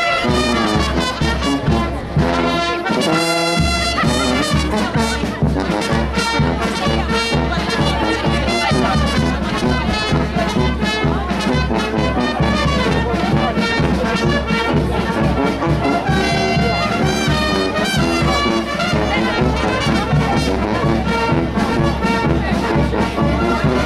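Brass band playing a continuous tune, with trumpets and trombones to the fore.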